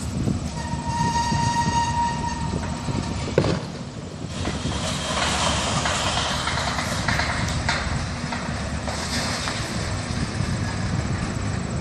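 Heavy machinery rumbling as a demolition crane works its wrecking ball. A steady horn tone sounds for about two seconds near the start, and there is a sharp click about three and a half seconds in.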